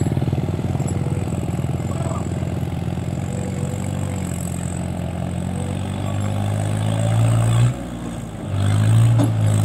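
New Holland tractor's diesel engine hauling a heavily loaded sugarcane trolley, running steadily under load and growing louder as it approaches. About eight seconds in the engine note briefly drops, then comes back louder.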